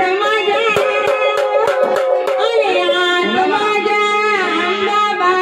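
A woman singing a Marathi devotional song, holding and bending long notes over hand-drum strokes, with a steady low held note entering past the midpoint.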